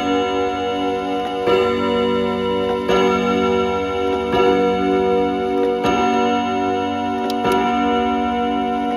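Kienzle wall clock sounding its chime: leather-padded hammers strike the gong rods one note about every one and a half seconds, each note ringing on under the next.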